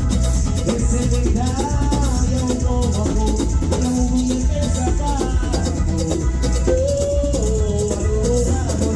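A live band playing Latin-style music, with a heavy bass, a wandering melody line and a fast, even shaker-like rhythm on top.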